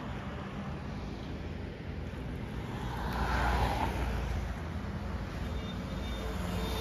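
Road traffic going by, a steady low rumble with one vehicle passing louder about three seconds in.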